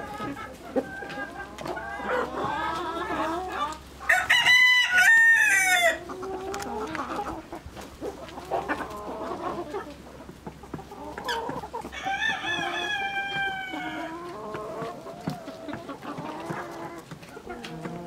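A flock of chickens clucking continuously. A rooster crows loudly for about two seconds, about four seconds in, and a second, quieter crow with a falling pitch follows about twelve seconds in.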